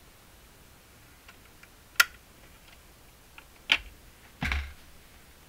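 Faint vinyl record surface hiss, broken by two sharp clicks about two and three and a half seconds in and a duller thump a second later. No race or engine sound remains: the record side has run out.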